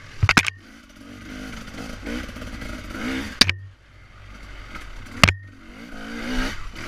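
2015 Husqvarna TE300 two-stroke single-cylinder engine revving up and backing off again and again while riding. Three sharp, loud clattering knocks stand out: one just after the start, one about halfway through, and one a little past five seconds.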